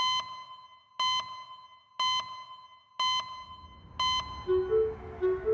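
Electronic beeps from the show's time-stamp card, one short high tone every second, five in all, each marking a second ticking over on the on-screen clock. A low hum and a few soft music notes come in near the end.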